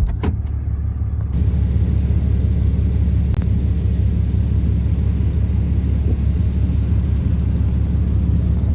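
Vehicle driving with a steady low engine and road rumble that gets louder about a second in; a single faint click a few seconds in.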